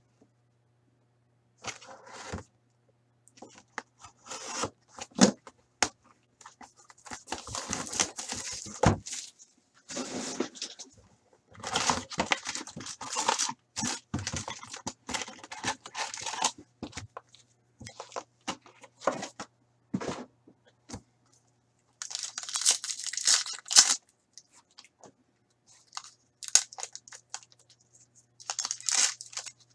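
A wrapped Masterpieces hockey card box being torn open and its foil card packs handled and ripped open: irregular bursts of tearing and crinkling with short pauses between them.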